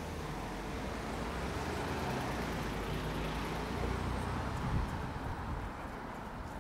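A vehicle passing close by on a city street. Its engine hum and tyre noise swell and then fade, with a short knock about three-quarters of the way through.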